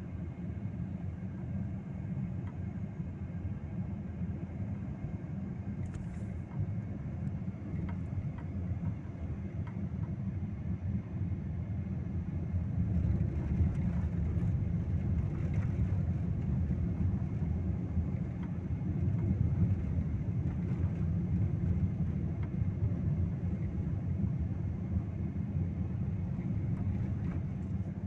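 Car driving along at road speed, heard from inside the cabin: a steady low rumble of tyre and engine noise, getting a little louder about halfway through.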